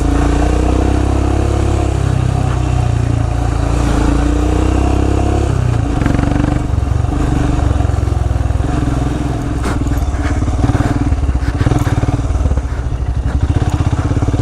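Royal Enfield Himalayan's 411 cc single-cylinder engine running at low revs as the motorcycle rides a rough off-road trail. Its firing beat is plainest in the second half.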